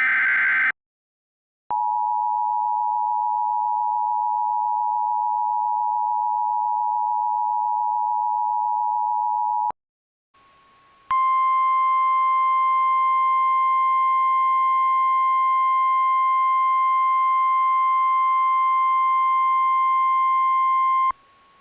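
Emergency Alert System broadcast tones: a short burst of SAME digital header data, then the two-tone EAS attention signal held steady for about eight seconds, and after a brief gap the single NOAA Weather Radio 1050 Hz warning alarm tone, steady for about ten seconds and cutting off abruptly near the end.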